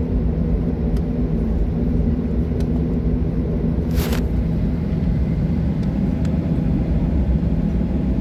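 Airliner cabin noise while the plane taxis: a steady low rumble with a hum from the engines. A brief rustle comes about four seconds in.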